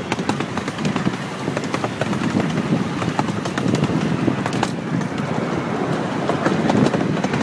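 Amusement-park train riding along, heard from aboard: a steady rumble and rattle with frequent sharp clicks.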